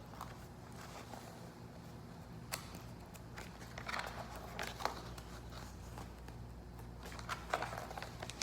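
Faint rustling and a few short clicks, like handling and movement, over a steady low hum.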